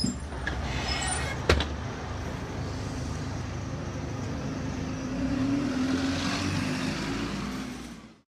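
Bus engine running at the kerb with street traffic noise around it, a single sharp click about one and a half seconds in; the sound fades out near the end.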